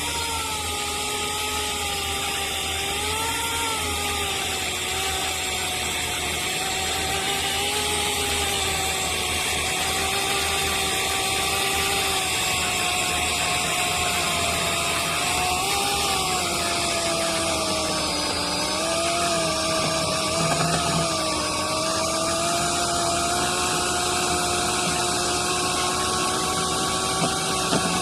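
Oregon CS1500 corded electric chainsaw cutting through a green white oak log about two feet thick, its chain not yet sharpened. The motor runs with a steady whine whose pitch wavers and sags as the chain bites into the wood.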